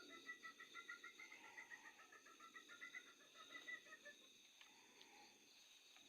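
A faint, fast pulsing trill from a night animal on two high pitches, lasting about four seconds, over a steady high chirring of insects.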